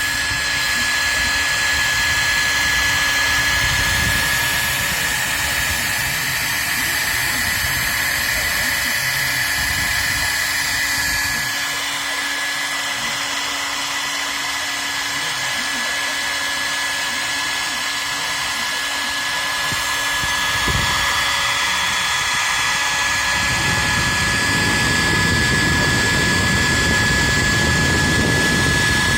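CNC router spindle running with a steady high whine while a fine tapered ball-nose bit machines wood on a finishing pass. A low rumble under the whine drops away about a third of the way through and comes back louder near the end.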